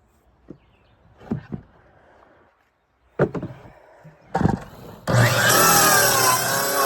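A few knocks as wood is handled, then a power saw starts about five seconds in and cuts through wood, its pitch wavering as the blade bites.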